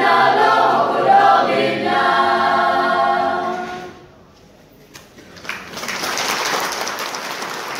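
A group of voices singing a song, ending on a held chord that dies away about four seconds in. After a short pause, applause breaks out.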